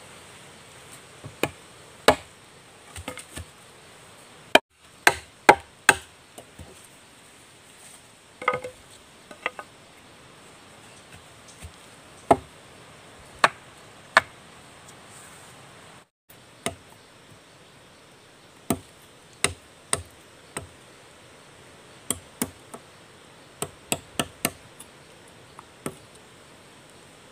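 Machete chopping and splitting wooden sticks against a log: irregular sharp knocks, some in quick runs of three or four. A steady high insect drone runs underneath.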